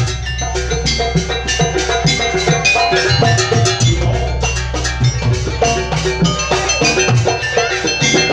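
Live jaranan gamelan music: metal keyed percussion and drums struck in a fast, steady rhythm over a low, sustained ringing.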